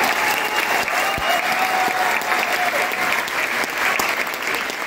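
Audience applauding steadily, with a few voices calling out over the clapping in the first couple of seconds.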